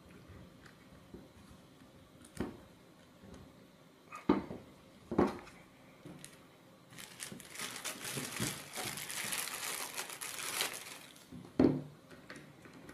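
Clear plastic bag crinkling for about four seconds as a robot-car wheel is pulled out of it. Before and after this come a few sharp knocks as the robot chassis is handled on the table.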